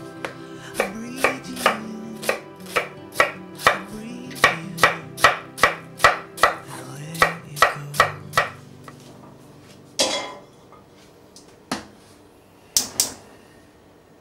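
Chef's knife chopping diced onion and apple on a wooden cutting board: a regular run of knife knocks, about two to three a second, over soft background music. The chopping stops about eight and a half seconds in, followed by a brief rustle and a few separate knocks near the end.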